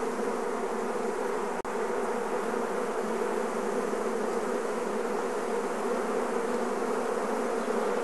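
Honeybees of an opened Langstroth hive buzzing: a dense, steady hum of the whole colony.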